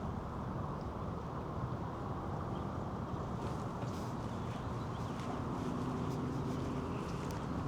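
Steady low rumble of outdoor city ambience, with faint light footstep clicks from about three seconds in.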